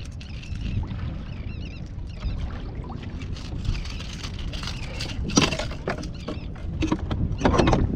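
Wind rumbling on the microphone and water around a fishing kayak at sea, with a few short noisy bursts about five seconds in and again near the end.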